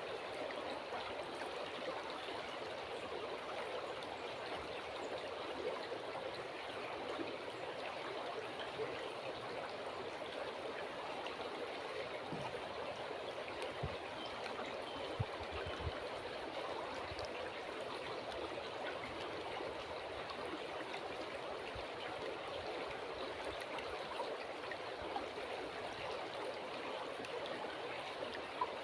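Water flowing steadily in a river, a continuous babbling rush with a few faint knocks and splashes.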